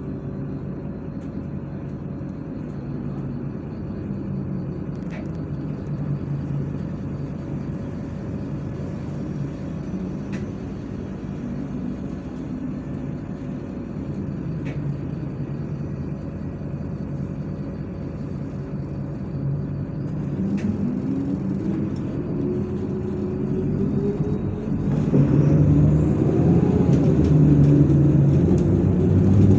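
MAZ-103 city bus's diesel engine running with a low hum and occasional small clicks and rattles. About twenty seconds in, the engine pitch starts to climb, and for the last few seconds it is clearly louder, rising as the bus picks up speed.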